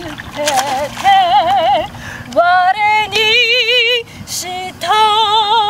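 A woman singing a hymn solo, in phrases of long held notes with wide vibrato, with short breaks between phrases.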